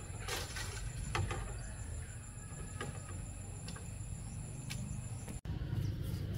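Insects droning in two steady high tones over a low rumble, with a few sharp cracks or knocks. The drone cuts off suddenly about five seconds in.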